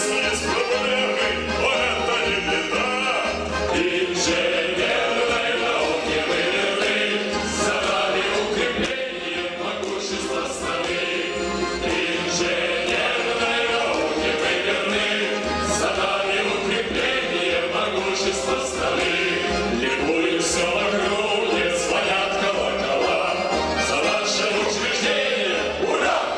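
Male voices singing a song through microphones, backed by a male choir and an instrumental ensemble with strings. The song has a steady low beat throughout.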